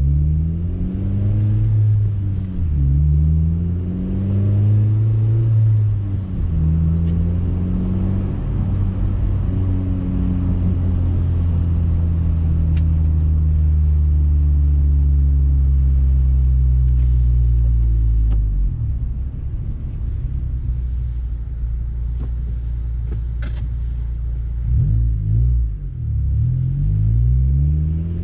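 2012–2015 Honda Civic Si's 2.4-litre four-cylinder through a K-Tuned 3-inch cat-back exhaust, heard from inside the cabin while driving. The engine pulls up through two gears with shifts about three and six seconds in, then drones at a steady cruise, drops away sharply around eighteen seconds in, and revs up and down again near the end.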